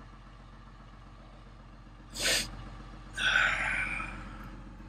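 Caterpillar excavator's diesel engine idling steadily, heard from inside the cab. About two seconds in there is a short sharp hiss, and a second later a longer hiss that fades away.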